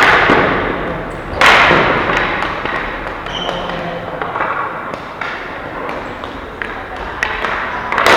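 Ball hockey game play: scattered knocks and clacks of sticks and ball, with a loud bang about a second and a half in that echoes in a large hall.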